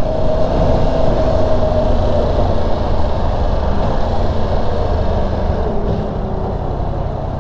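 2023 Yamaha R1's crossplane inline-four engine running steadily while the bike is ridden on the road, under wind and road noise. It gets a little quieter in the second half.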